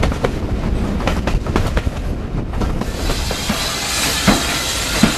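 Steam train on the move: wheels clicking over rail joints, then a steady hiss of steam from about three seconds in, with two thumps near the end.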